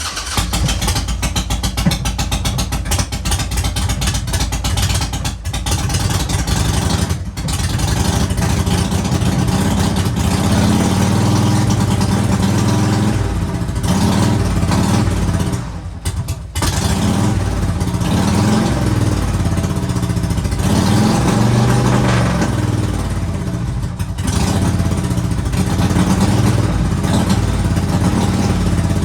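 Harley-Davidson Twin Cam 96 V-twin running on choke on its first start after a cam chest rebuild. The revs rise and fall, with brief dips a few times.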